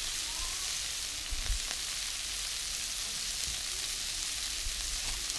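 Chopped chilies, garlic and flaked mackerel sizzling in oil in a steel wok: a steady, even hiss.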